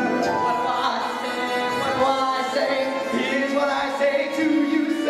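Show-tune accompaniment music playing.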